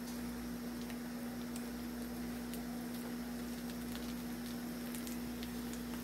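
Potatoes and eggs cooking in a nonstick skillet, softly sizzling as a silicone spatula pushes and turns them, with a few light ticks. A steady low hum runs underneath.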